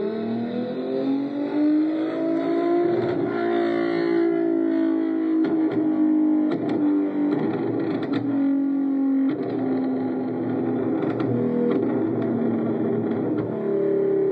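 Car engine accelerating hard, its pitch climbing over the first few seconds and holding high, falling back about eight seconds in, then picking up and climbing again near the end.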